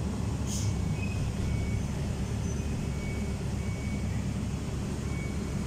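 Diesel engine of a tracked excavator running steadily, a continuous low rumble, with a brief hiss about half a second in.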